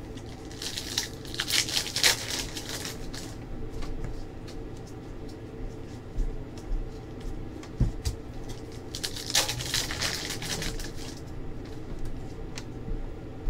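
NBA Hoops basketball card packs being torn open and the cards handled: two spells of crinkly wrapper tearing and rustling, about a second in and again about nine seconds in, with light clicks and cards sliding in between.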